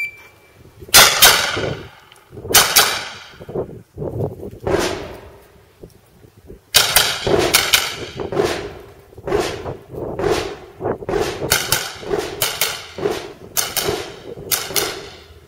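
Semi-automatic rifle firing many shots, often in quick pairs and short fast strings, with brief pauses between strings; each shot is sharp and trails off in a short echo.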